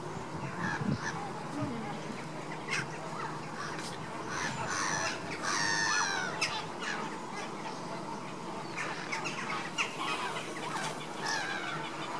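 Caribbean flamingos in a flock calling with goose-like honks, many short calls overlapping, loudest in a run about five to six seconds in.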